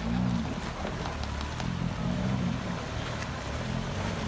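Off-road 4x4 engine revving, its pitch rising and falling several times, over a steady rushing noise.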